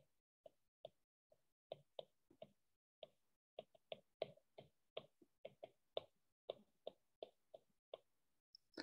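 Faint, irregular clicks of a stylus tapping on a tablet's glass screen while handwriting, about two or three taps a second.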